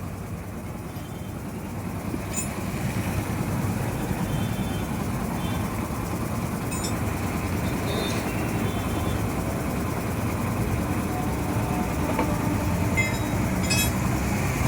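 A motor vehicle engine running with a steady low rumble, building about two seconds in, with a few faint metallic clinks over it.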